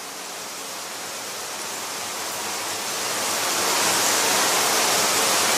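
Rain sound effect closing a song: an even, steady hiss of rainfall that slowly swells louder.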